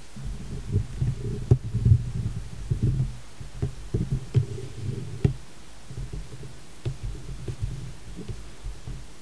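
Handling noise from a handheld camera as it is moved in toward the screen: irregular low rumbles with scattered soft knocks, busiest in the first half and easing off later.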